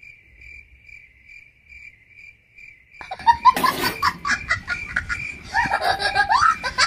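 A cricket chirping in an even, high pulse about four times a second, used as an awkward-silence effect; it stops about three seconds in, when a man starts laughing loudly over busier sound.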